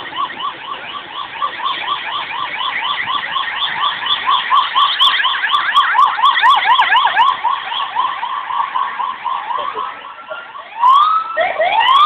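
Emergency vehicle siren in a fast yelp, about four rises and falls a second, switching near the end to slower rising wails.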